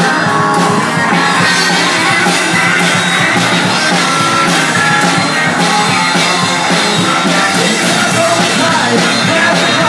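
Rock music with drums and guitar.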